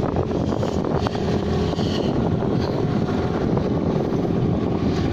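Small boat's engine running steadily under way, a constant low drone, with wind on the microphone.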